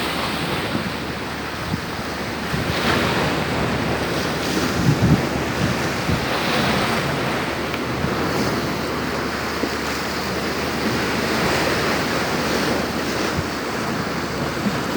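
Rough sea surging and breaking in high storm waves, with strong wind buffeting the microphone.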